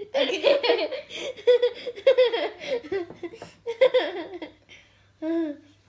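Two young girls laughing hard together in quick repeated bursts of giggles, trailing off after about four seconds, with one short held vocal sound near the end.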